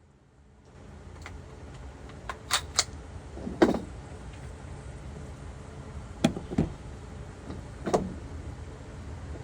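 A series of about seven sharp clicks and knocks, loudest a little past three and a half seconds in, over a steady background hiss.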